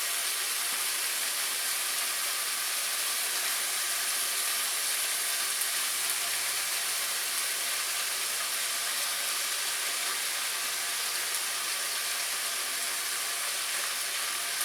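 Shaved ribeye sizzling steadily in a hot pan, an even frying hiss.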